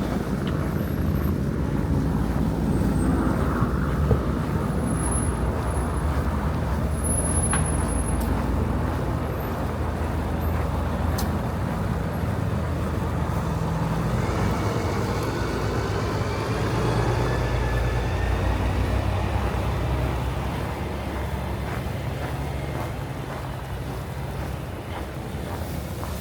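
A heavy road vehicle's engine running close by in street traffic, a steady low rumble with a rising whine about halfway through. The sound eases off near the end.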